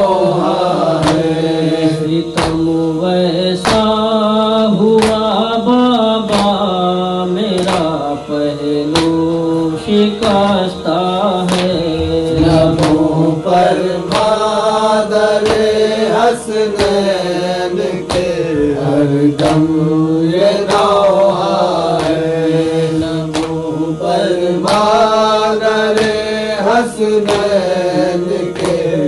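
A noha, a Shia mourning lament, sung by voices in a slow wavering melody over a steady percussive beat of about two strikes a second.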